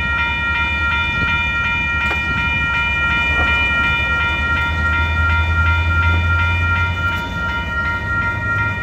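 Railroad crossing warning bells dinging in a rapid, even rhythm while the crossing gates are lowering, over a low rumble that swells in the middle.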